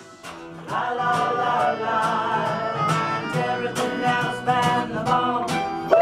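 Live folk band playing a song: strummed acoustic guitar at about two strokes a second, with sustained melody notes held over it.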